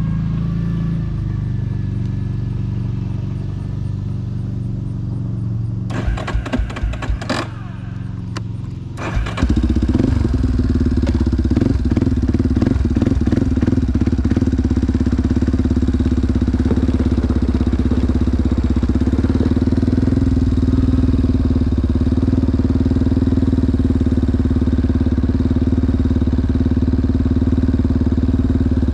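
ATV engine running at a low, steady note, with a quick series of sharp knocks about six to seven seconds in; about nine seconds in the engine suddenly gets louder and runs on steadily as the ATV gets under way.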